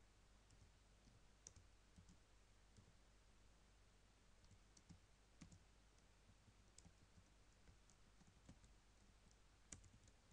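Near silence with faint, irregular computer keyboard key clicks, often a second or more apart, over a low steady hum.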